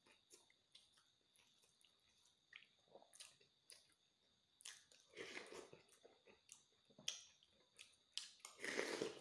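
Close-up eating sounds: faint scattered chewing clicks and spoon taps, with a louder wet mouthful about five seconds in and the loudest one near the end as a spoonful of insect larvae in broth is taken from a metal spoon.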